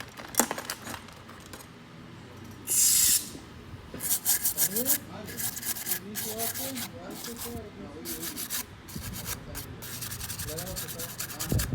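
Hand tool scraping and rubbing along a smartphone's frame to clean off old screen adhesive: a short loud rub about three seconds in, then rapid repeated scraping strokes.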